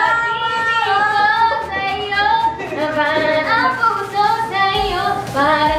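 Young women's voices singing a pop song phrase, unaccompanied, with held and gliding notes.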